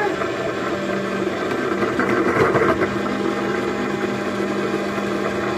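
Small electric motor of an egg-decorating spinner whirring steadily as it turns an egg.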